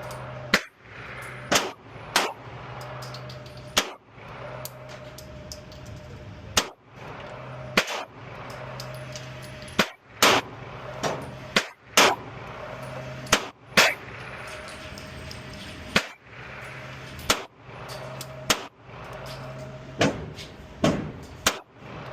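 Gunshots from a Springfield Echelon pistol, about fifteen shots fired at uneven intervals, some in quick pairs, over a steady low hum.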